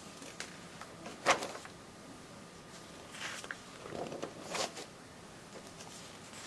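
Paper pages of a binder catalog being handled and turned, rustling, with a sharp tap or click about a second in.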